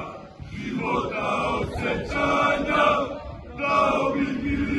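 A large group of men chanting in unison, a sung chant in phrases that dips briefly about half a second in and again just past three seconds.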